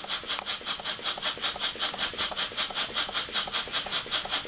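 Small single-cylinder vertical marine steam engine with a 2-inch bore and 2.5-inch stroke, running on compressed air: a steady, even rhythm of hissing exhaust puffs, about five a second.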